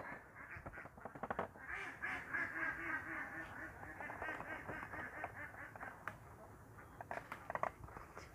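Faint duck quacking: a run of repeated calls, with a few light clicks near the end.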